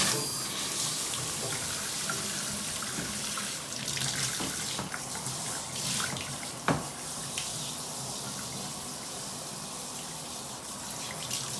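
Water spraying steadily from a handheld shower head onto a wet Samoyed's thick coat in a bathtub, with one sharp knock a little past halfway.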